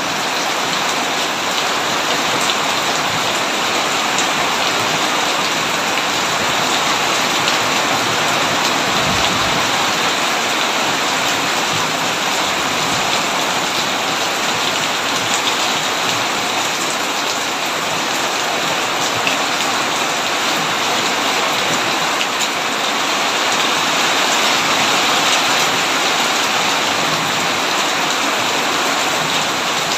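Heavy rain pouring steadily: a dense, even hiss with no letup.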